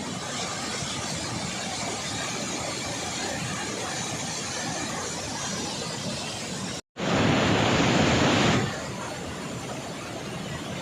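Water rushing out of open dam spillway gates as a steady roar of noise. About seven seconds in the sound drops out for an instant, then comes back louder for about a second and a half before settling to the steady level.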